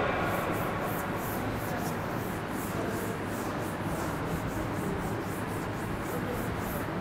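A chalkboard eraser being rubbed back and forth across a blackboard, wiping off chalk in quick repeated strokes, about three a second.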